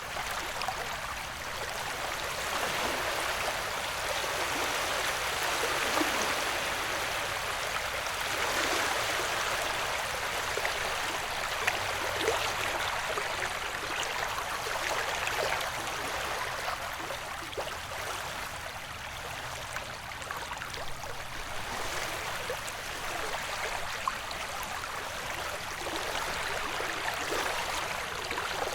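Ocean waves washing in a steady hiss of surf, swelling and easing gently every few seconds.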